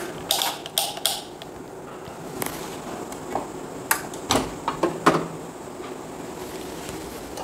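Sharp clicks of an analog multimeter's rotary range switch being turned, a quick cluster in the first second, followed by a few more single clicks and light knocks spaced about a second apart.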